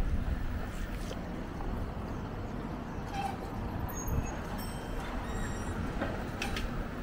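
City street background: a steady low rumble of traffic, with a few faint clicks and some brief high-pitched chirps around the middle.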